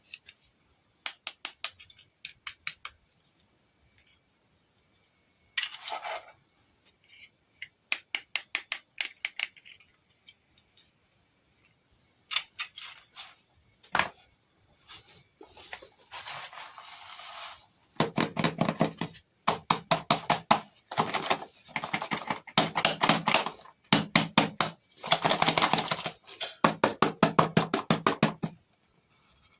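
Doll toys and their packaging being handled: bursts of rapid clicking and rattling with short pauses between them, denser and louder in the second half.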